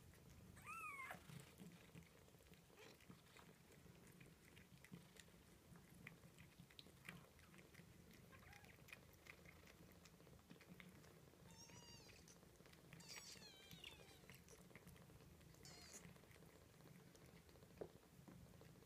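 Ten-day-old kittens giving a few faint, high-pitched mews, one about a second in and a cluster from about twelve to sixteen seconds in, over soft wet clicking and licking sounds as the mother cat grooms them.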